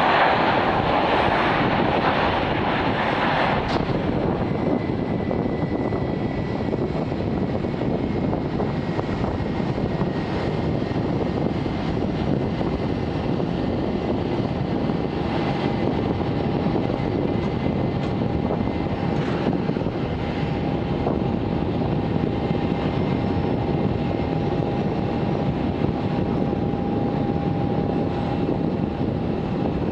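Boeing 757-200 jet engines on the landing roll: loud for about the first three seconds, then dropping to a steady lower rumble as the airliner slows on the runway. A faint steady whine comes in a few seconds later, joined by a lower one about halfway through.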